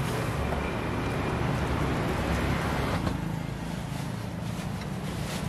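Steady street traffic rumble, with a single light click about three seconds in.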